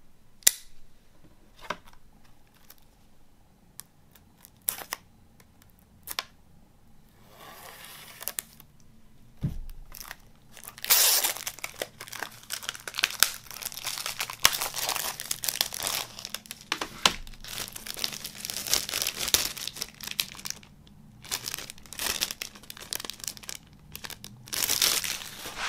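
Clear cellophane shrink wrap being torn and peeled off a plastic CD jewel case, crinkling densely with short pauses. A few separate sharp clicks and taps come in the first several seconds, before the crinkling starts.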